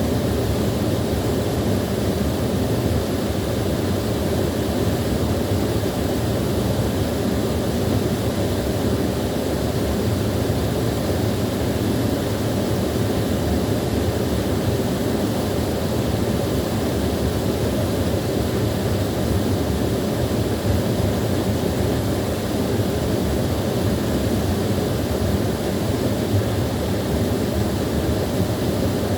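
Small waterfall splashing and rushing steadily, a constant deep, even rush of falling water.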